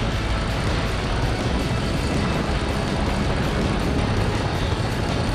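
Motorcycle ridden at speed on a track lap: a steady, even rush of engine and wind noise.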